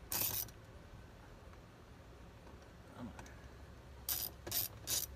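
Brief metallic clinks and rattles of a socket wrench working a 7mm bolt out of a truck's plastic door panel: one right at the start, then three close together about four to five seconds in.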